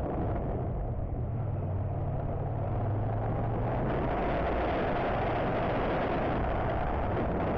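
Motorcycle engine running as the bike is ridden, picked up by a helmet-mounted action camera, with a steady low engine note at first; about four seconds in, wind and road noise rises and covers the engine.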